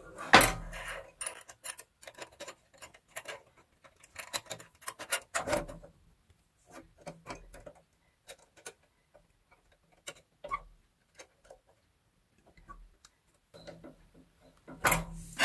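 Metal pedal rods and their nut on an industrial sewing-machine stand clicking, tapping and rubbing as they are handled and fitted together by hand. The small clicks come irregularly, with louder clusters about half a second in, around five seconds in and near the end, and only sparse faint ticks in between.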